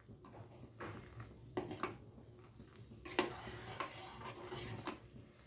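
A handful of faint, light clinks and taps of metal kitchen utensils and a pan, scattered over a low steady hum.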